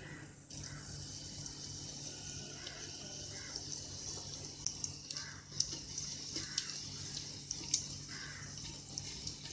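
Hot oil sizzling in a pressure cooker as bay leaves and asafoetida fry in it, a steady hiss with small crackling pops. The pops come more often from about halfway through.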